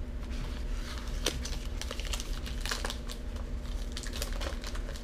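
Chocolate bar wrapper crinkling in the hands, a run of irregular crackles, over a low steady hum.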